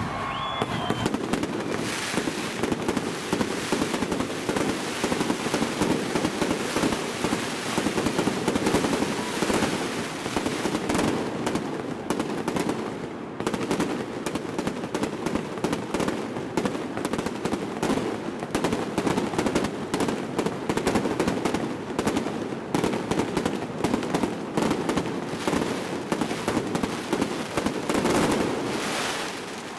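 Aerial fireworks bursting close overhead in a dense, continuous barrage of bangs and crackling, easing off near the end.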